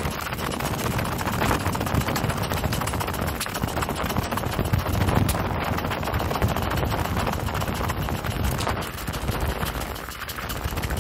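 Mountain bike riding fast down a rough dirt track: rapid, irregular rattling and knocking of the bike and its mounted camera over bumps and gravel, over a steady low rumble of wind on the microphone.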